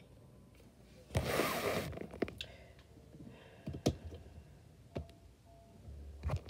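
Close handling noise: a brief rustle about a second in as the camera is moved, then scattered light clicks and knocks from a plastic action figure being handled and set toward a toy wrestling ring.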